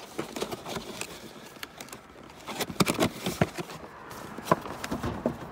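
Irregular clicks, knocks and rubbing from handling and moving about inside a boat, with a cluster of sharper knocks about three seconds in and a single loud knock near the end.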